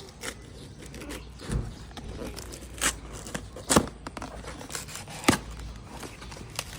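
A package being opened by hand: tearing and crinkling of the packaging, with three sharp knocks about three, four and five seconds in.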